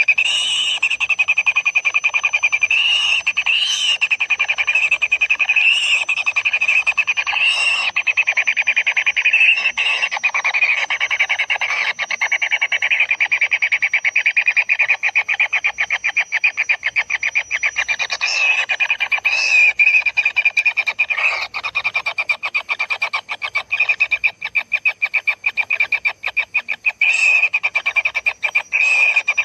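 Kingfisher nestlings calling continuously, a fast, buzzy ticking churr at a steady high pitch, typical of begging chicks. It swells into louder squeaky notes every few seconds, and the ticks come out more distinctly in the last few seconds.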